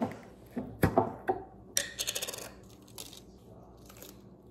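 Metal screw lid being twisted off a glass pickle jar, with a few sharp clicks, then the lid set down on a granite countertop about two seconds in, rattling quickly for about half a second as it wobbles to rest.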